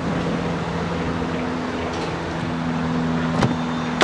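Front passenger door of a Mercedes-Benz S65 AMG being unlatched: two sharp clicks near the end, the second and louder one as the door releases. Under it runs a steady low hum.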